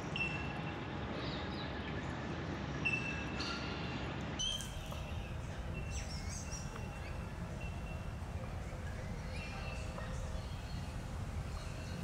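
Wild birds calling over steady wetland background noise: short, repeated whistled notes and scattered chirps. The background changes abruptly about four seconds in.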